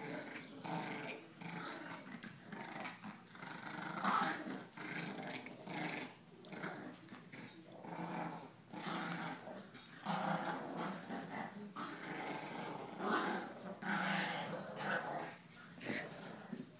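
Dogs growling in play while tugging at a toy: a bulldog and a Yorkshire terrier in a tug-of-war. The growls run on in rough, uneven swells.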